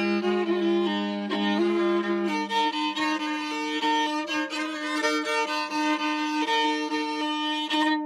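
Violin playing a slow folk-style melody with a held low note sounding beneath it; the low note steps up to a higher pitch about two seconds in.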